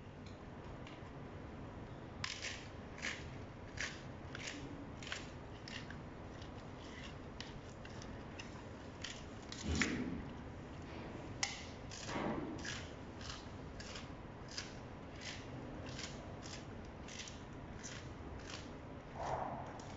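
Gorilla biting and chewing crisp green leafy stalks: a steady series of sharp crunches, roughly one to one and a half a second. A few duller, fuller sounds fall in the middle and near the end.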